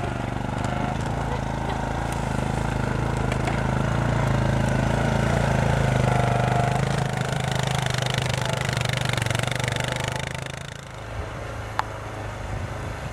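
Four-wheeler (ATV) engine running at a steady idle, dropping away sharply near the end.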